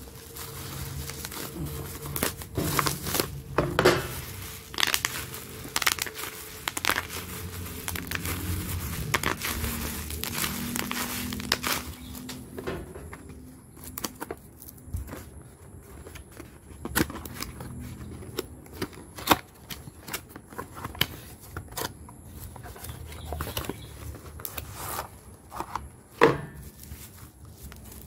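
Bubble wrap crinkling and rustling in the hands as it is pulled off a cardboard box and handled, with irregular crackles. The crackling is busiest in the first dozen seconds, then thins out to scattered sharper clicks.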